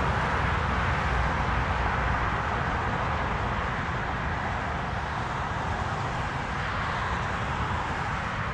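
Steady noise of highway traffic: tyres and engines of passing cars and trucks.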